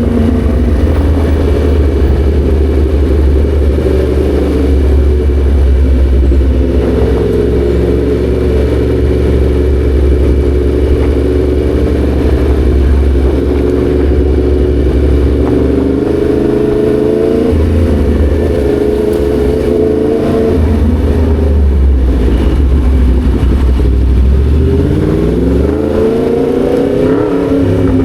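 Yamaha MT-10 SP's crossplane inline-four engine running under way, its pitch holding, dropping sharply once about two-thirds through, then climbing steeply as the bike accelerates near the end.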